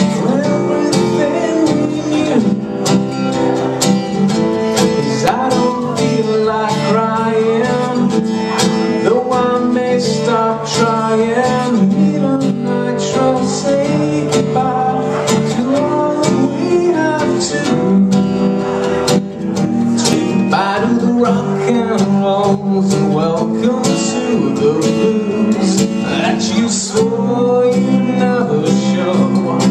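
Two acoustic guitars played together in an instrumental passage: quick picked notes over sustained lower chords.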